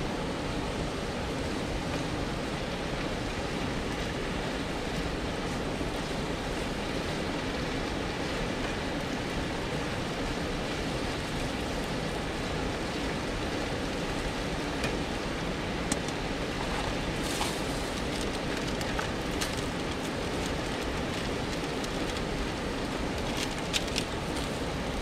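Pasta boiling in a pot on a camp stove: a steady hissing rush of burner and bubbling water, with a few light clicks of a utensil against the pot in the second half.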